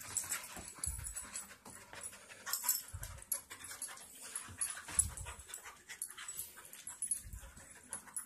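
Two dogs play-wrestling on carpet: scuffling and clicking movement with a few low thuds about every two seconds.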